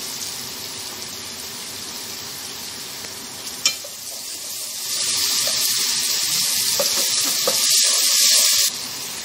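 Chopped onions sizzling as they fry in hot oil in a steel pot, stirred with a spatula. There is a single sharp knock about three and a half seconds in; the sizzling grows louder a second later and cuts off suddenly near the end.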